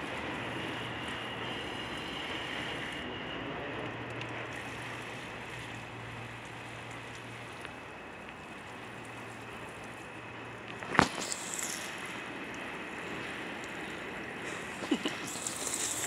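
Water spraying from a handheld outdoor shower head onto gravel and plants: a steady hiss of spray with a low hum beneath it. A sharp click about eleven seconds in, and a smaller one near the end.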